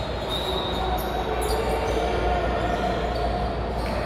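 Basketball gym ambience: a steady wash of crowd chatter and court noise, echoing in a large hall.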